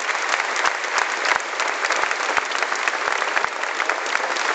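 Large crowd applauding, a dense steady patter of many hands clapping.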